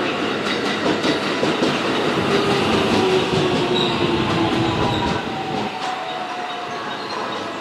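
JR West 223 series electric multiple unit pulling into a station and slowing: wheels rumbling and clacking on the rails, with a motor whine falling in pitch as it brakes. The low rumble dies away about two-thirds of the way through.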